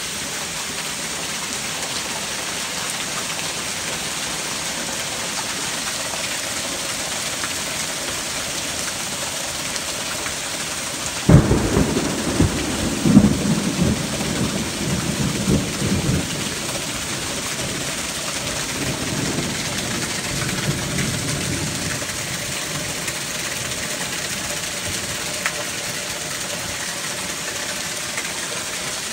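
Heavy rain pouring down, a steady hiss. About eleven seconds in, a sudden crack of thunder breaks in and rolls on as a rumble for several seconds before fading back under the rain.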